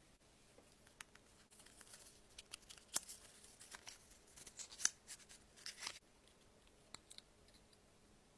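Cardboard makeup packaging and a plastic eyeshadow palette being handled: a few seconds of soft scraping and rustling with small clicks and taps, then two faint ticks near the end.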